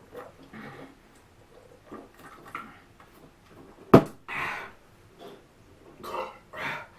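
A person gulping soda, faint and soft, then a sharp knock about four seconds in. Heavy breaths out follow it, as at the end of chugging a 2-liter bottle.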